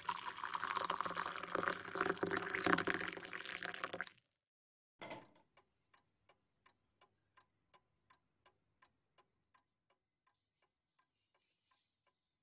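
A loud, dense sound with held tones cuts off abruptly about four seconds in. After a second of silence comes a click, then a clock ticking steadily at about three ticks a second, growing gradually fainter.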